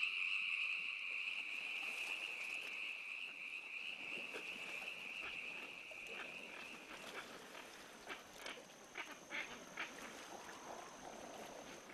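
Faint wildlife sounds: a steady high insect trill that fades away over the first several seconds, then scattered short, sharp animal calls, with a thin high steady tone in the later part.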